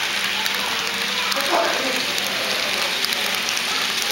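HO-scale double-stack container train rolling past close by: a steady hiss of metal wheels running on the rails, with fine rapid ticking through it.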